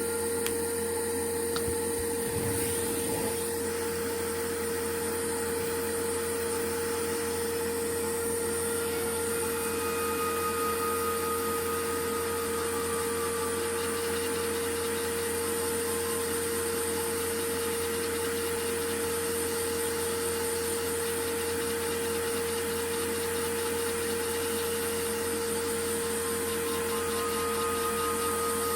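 Steady whir of a small motor or fan, with a constant hum and a high hiss that hold unchanged throughout.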